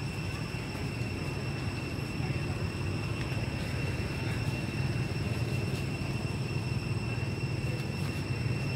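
Steady low rumble of outdoor background noise, with a thin, high-pitched steady whine above it and a few faint clicks.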